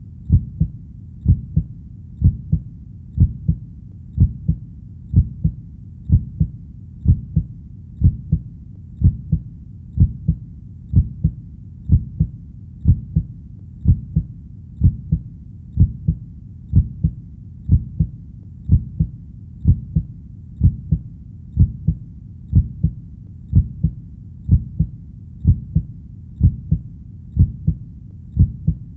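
Human heartbeat, a steady double 'lub-dub' beat about once a second, deep and low, over a faint steady background.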